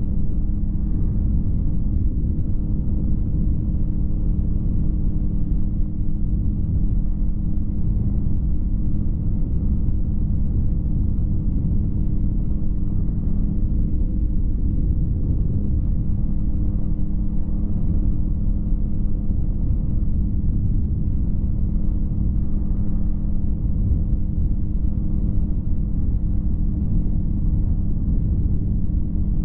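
P&M Quik flexwing microlight's Rotax 912 engine running steadily at constant power, a continuous drone mixed with wind noise on the microphone.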